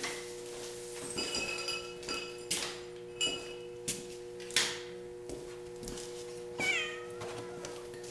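A cat meows once, about six and a half seconds in, a short call falling in pitch. Around it are several sharp metal clanks and taps, some of them ringing, over a steady electrical hum.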